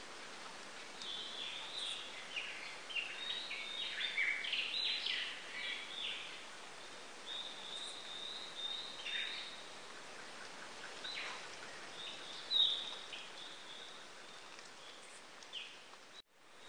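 Steady hiss with scattered high chirping calls, busiest in the first few seconds; the sound drops out briefly near the end.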